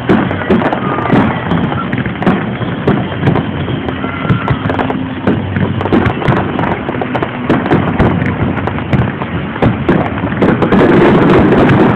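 Aerial fireworks display: a dense run of bangs and crackling from bursting shells, growing louder about ten and a half seconds in.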